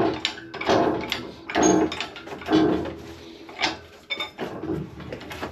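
Metal clunks and scrapes as a Harley-Davidson clutch hub is worked out of its bearing: several separate knocks with a little ringing.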